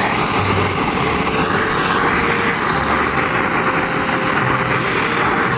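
Small motorcycle running at road speed, heard while riding: a steady engine drone under a loud rush of wind noise.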